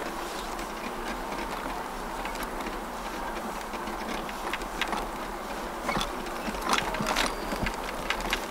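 A steady mechanical hum, with a few sharp clicks and knocks between about six and seven and a half seconds in.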